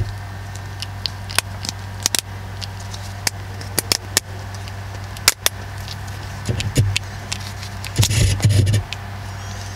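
Scattered plastic clicks and rattles as a replacement 12-volt outlet's cover is pushed along its wires and the socket is handled, with louder fumbling twice near the end. A steady low hum runs beneath.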